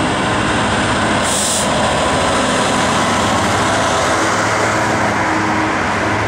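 Class 66 diesel-electric freight locomotive passing close at speed, its two-stroke diesel engine running under power, then a string of coal hopper wagons rolling by. A short hiss about a second and a half in.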